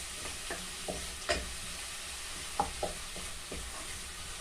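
Onion and garlic sizzling in hot oil in a pan while being stirred, with a utensil scraping and tapping against the pan about six times.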